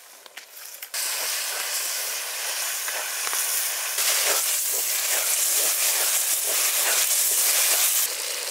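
Duck meat frying in hot oil in a pan: a steady loud sizzle that starts about a second in and grows louder about four seconds in, with a few faint scrapes of stirring.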